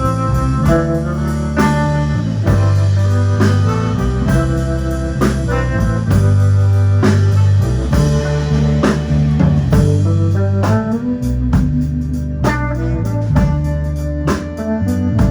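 A live band playing guitar over bass and a drum kit with a steady beat.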